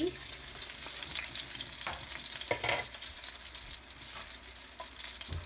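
Halibut fillets sizzling in butter in a stainless-steel frying pan: a steady frying hiss with small crackles.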